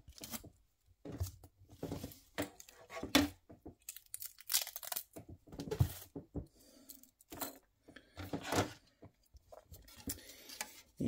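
A strip of clear tape peeled off plastic model parts, with the rustle and small clicks of the hard plastic panels and door rods being handled: irregular short rasps and clicks.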